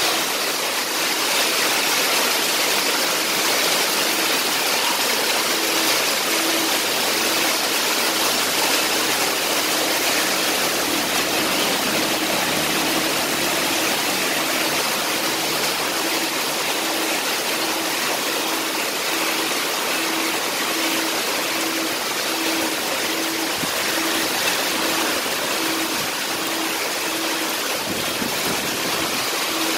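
Heavy downpour mixed with small hail falling on the street and rooftops, a steady loud hiss. A faint low tone pulses at even intervals, about once a second, through most of it.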